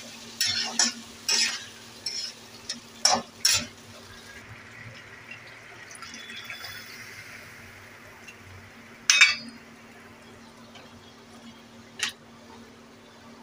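Spatula scraping and knocking against a kadai while stirring pieces of taro root (arbi), in a quick cluster of strokes over the first few seconds and then single strokes about nine and twelve seconds in. Between the strokes there is a soft, steady hiss from the pan.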